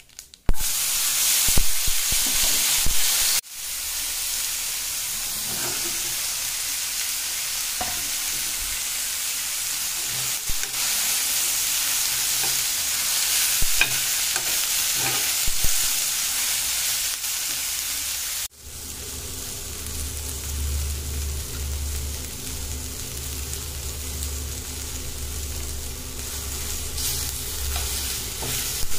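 Guamuchil pods frying with onion and tomato in oil in a kadai, sizzling steadily while a slotted metal spatula stirs and scrapes the pan with scattered clicks. The sound breaks off sharply twice, and after the second break a low hum runs under the sizzle.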